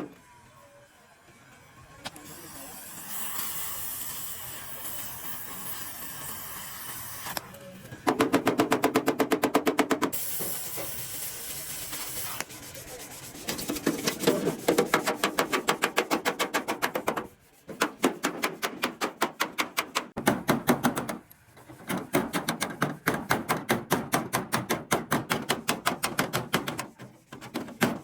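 Rapid, evenly spaced hammering on metal in bursts, at times about ten blows a second, alternating with stretches of hiss.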